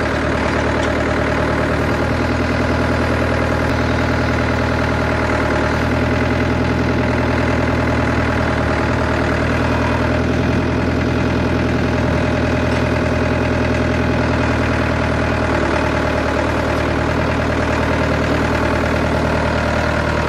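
An engine running steadily at a constant speed, an even low drone with no revving.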